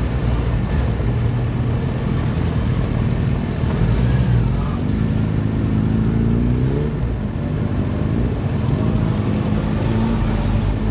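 Motorcycle engine running under a steady rush of wind and road noise. About halfway through, its pitch climbs for a couple of seconds as it accelerates, then drops suddenly.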